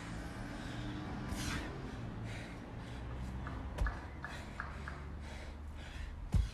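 A dumbbell thudding down onto a rubber floor mat twice during alternating dumbbell snatches, once nearly four seconds in and again near the end, with heavy breathing in between.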